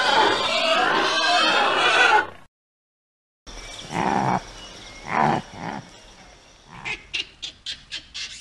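Animal calls from two different clips. First, many overlapping wavering calls; then, after a second of silence, three short low calls, followed by a quick run of about six short sharp chirps near the end.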